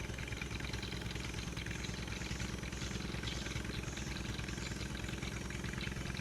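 A small engine running steadily at idle, with an even, fast pulsing beat.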